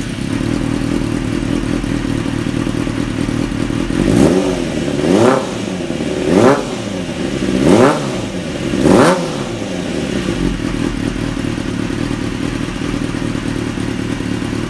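Kawasaki ZXR's carburetted inline-four engine idling through a short carbon aftermarket exhaust. It is blipped five times in quick succession between about four and nine seconds in, each rev rising and dropping straight back to idle.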